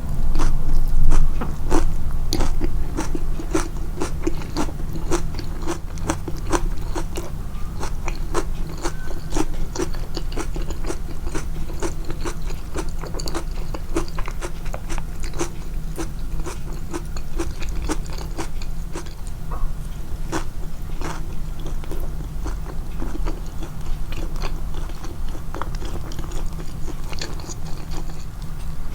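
A person chewing food close to the microphone with crunchy bites, the mouth sounds boosted in the edit. The crunches come a few per second and are loudest about a second in.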